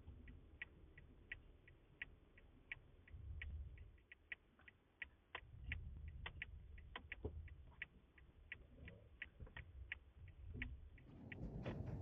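A faint, even series of sharp ticks, about three a second, over a low rumble.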